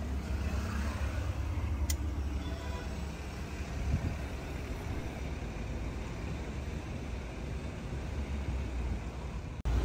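Steady low vehicle rumble, with a single sharp click about two seconds in.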